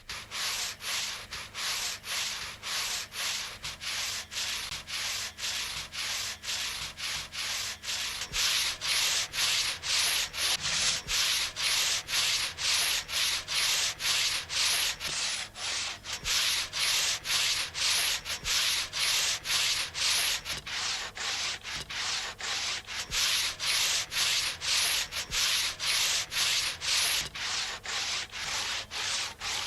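Heavy hand crosscut saw cutting through a thick tree trunk, with steady back-and-forth rasping strokes about two a second.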